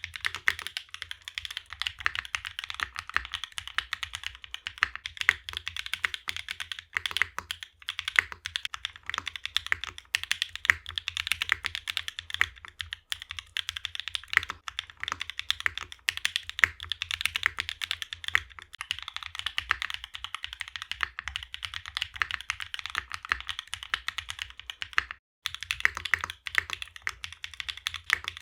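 Continuous fast typing on a mechanical keyboard with NovelKeys NK Cream+ linear switches in a Mode65 with a carbon fibre plate and no foam: a steady stream of bright, clacky keystrokes, with a short pause about 25 seconds in.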